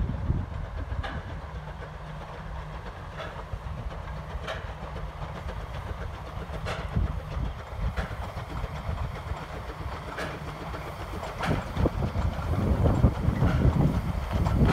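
Narrow-gauge steam train, hauled by Vale of Rheidol Railway locomotive No. 7, running past with a low rumble and its wheels clicking over the rail joints about once a second. It grows louder near the end as the coaches and wagons pass closest.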